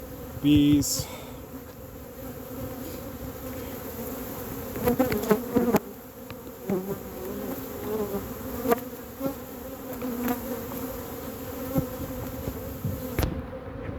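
Honeybees of a whole colony buzzing in a steady hum around a trap-out box, with a few knocks from the box being handled.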